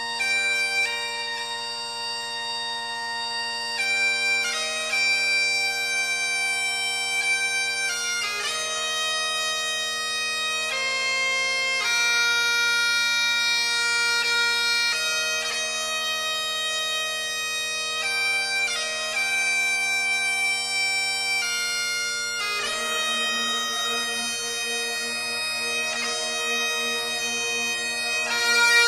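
Bagpipe music: a slow melody of held notes played over steady low drones.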